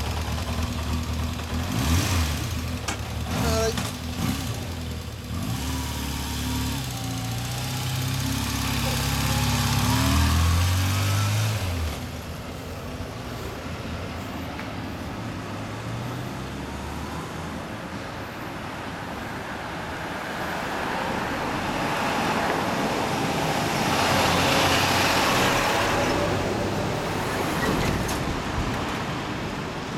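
Yamaha Diversion XJ400S inline-four motorcycle engine pulling away, its note stepping up in pitch and growing louder for about the first twelve seconds. Then it drops back to a more distant engine sound mixed with street traffic noise, which swells and fades again.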